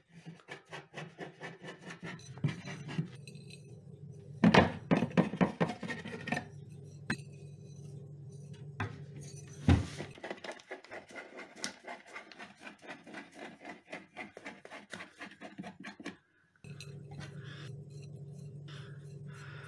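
Rapid scraping strokes and clinks as flour is scraped out of plastic jars and containers onto a glass plate, with a sharper knock near the middle. A low steady hum runs underneath and breaks off briefly near the end.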